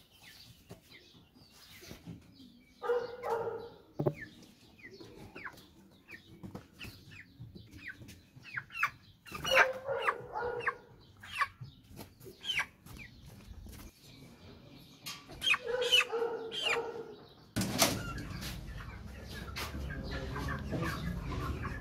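Chickens squawking and flapping their wings as they are caught and held by the legs: short, high, falling calls throughout, with three louder bursts of squawking and fluttering. Near the end a steady rushing noise sets in under the calls.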